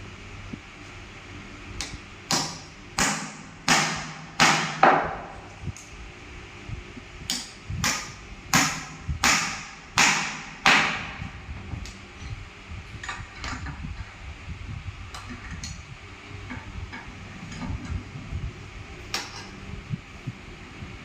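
Hammer blows on wood in two runs of about six strikes each, roughly one every two-thirds of a second, starting about two seconds in and again about seven seconds in. After that come lighter, scattered taps and knocks.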